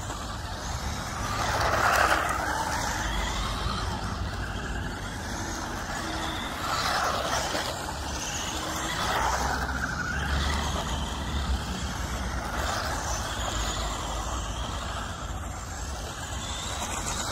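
Two 1/16-scale electric RC cars (SG1603 and SG1604) running on asphalt on road tyres: motor whine and tyre noise rising and falling several times as they speed up, turn and pass.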